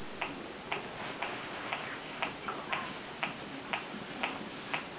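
Steady, even ticking, about two ticks a second, over a faint hiss.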